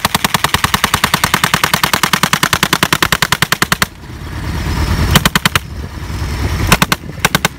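Browning .30-calibre machine gun converted to fire a propane-and-oxygen gas mix, firing a long burst of about four seconds at roughly a dozen reports a second. Two short bursts follow, a little after five seconds and around seven seconds.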